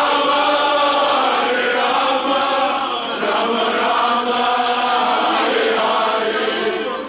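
A crowd of devotees chanting together in a devotional kirtan, many male voices singing loudly as one.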